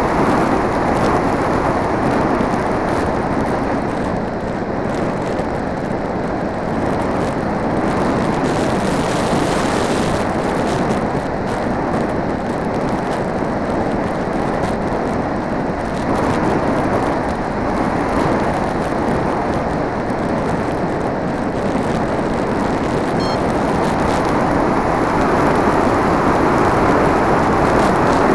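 Steady rush of wind and propeller noise on the onboard camera of a Multiplex Blizzard radio-controlled plane in flight, getting a little louder near the end as the plane banks.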